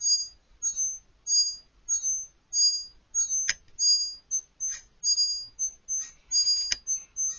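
Short, high-pitched squeaks repeating steadily about every two-thirds of a second. Two sharp taps fall among them, one a little past halfway and one near the end.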